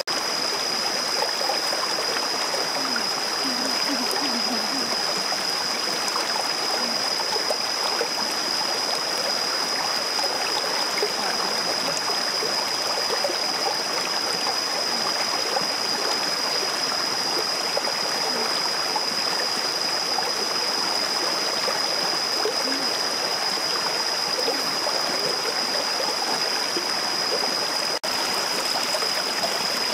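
Stream running over rocks: a steady rush of flowing water, with a constant high-pitched whine above it.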